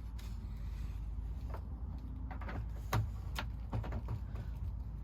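A few clicks and knocks of PEX pipe and its crimp fitting being handled and pushed together, the loudest about three seconds in, over a steady low rumble.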